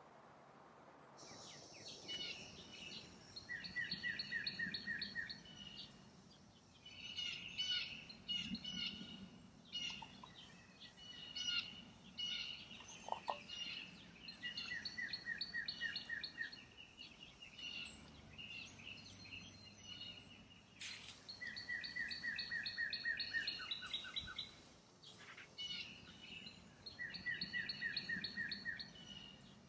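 Songbirds singing: a fast trilled phrase repeated about four times, with shorter chirps in between.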